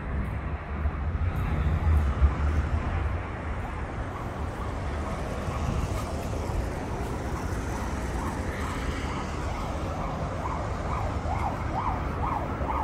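Street traffic, with a low rumble from passing vehicles that is strongest in the first few seconds. Behind it a distant emergency-vehicle siren sounds, turning to a quick up-and-down yelp near the end.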